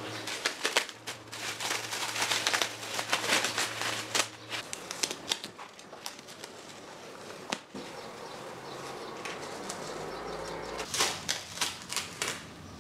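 Masking tape being peeled off metal engine casings: bursts of crackling and rustling, heaviest in the first few seconds and again near the end, with a quieter stretch between.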